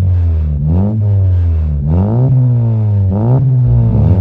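2018 Honda Civic RS's 1.5-litre turbocharged four-cylinder breathing through a full turboback exhaust with titanium mufflers, revved in park. It gives three quick blips about a second apart, each rising in pitch and falling back between them.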